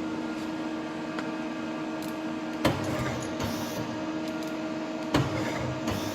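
Daewoo Puma TX200 M CNC lathe running with a steady hum. A sharp knock comes twice, about two and a half seconds apart.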